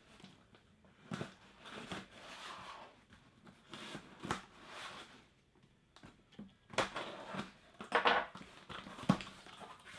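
Shipping packaging being handled: rustling and crinkling, with a few sharp knocks, the loudest about seven, eight and nine seconds in.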